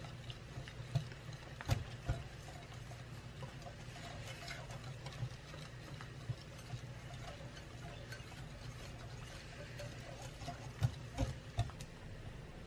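Wire whisk stirring a thick white chocolate and cream mixture in a glass bowl: soft scraping with irregular light clicks of the wires against the glass, a few sharper ones about two seconds in and again near the end. A steady low hum runs underneath.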